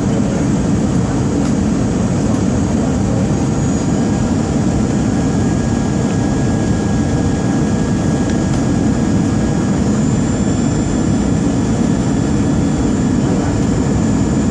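Jet airliner noise: a steady low rumble with faint, even high-pitched whines over it.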